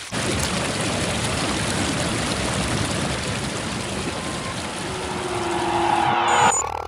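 A dense rushing noise played backwards, swelling slowly and then cutting off sharply near the end, with a faint steady tone joining it briefly.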